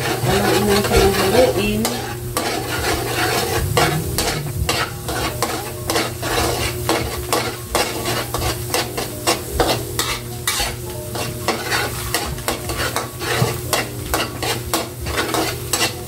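Eggs sizzling in margarine in an aluminium wok while a metal spatula scrapes and clacks against the pan in quick, irregular strokes, stirring them into scrambled egg.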